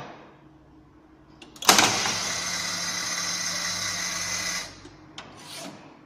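Williams Police Force pinball machine playing a sound effect through its speaker: a sudden loud, noisy burst about a second and a half in that holds for about three seconds and stops, then a short burst near the end. No music plays under it, the sound fault on this machine that leaves only effects and voices.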